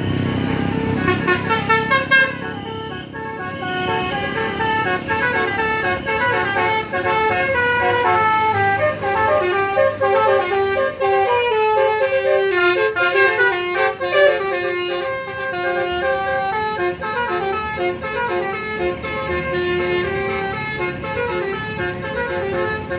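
Bus's basuri musical horn playing a long melody of stepped, held notes.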